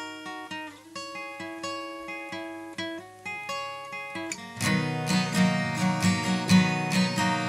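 Acoustic guitar music. Picked single notes give way, a little past halfway, to louder strummed chords on a steady beat.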